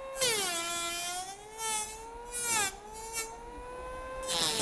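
Sound-effect imitation of an electric saw, made by holding a card against a running electric crumb sweeper. A steady buzzing whine sags and recovers in pitch, with several harsh rasping bursts as the card is pressed harder, like a blade biting into wood.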